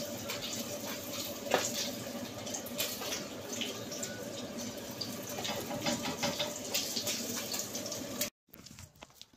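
Pieces of battered fish frying in oil in a frying pan that is running too hot: a steady sizzle with frequent crackles and spits. The sizzle cuts off abruptly about eight seconds in.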